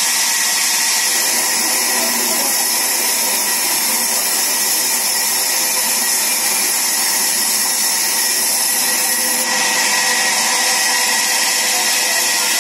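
Sawmill band saw running steadily, a constant loud whine and hiss, its tone shifting slightly about nine and a half seconds in.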